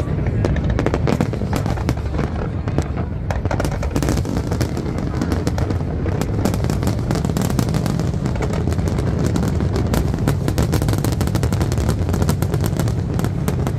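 Aerial firework shells bursting in quick succession: a dense, unbroken run of cracks and pops over a continuous deep rumble.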